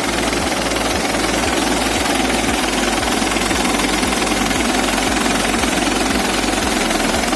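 The Isuzu diesel engine of a 1993 Chevrolet LUV pickup idling steadily with its rhythmic diesel knock. The engine is running well, its sound still good.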